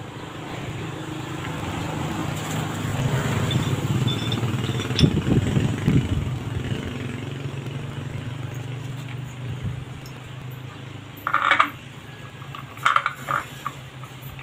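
A motor vehicle's engine passes by, growing louder over the first few seconds and then fading. Near the end come a few short, sharp metal clinks as the steel shaft and wheel hub are handled.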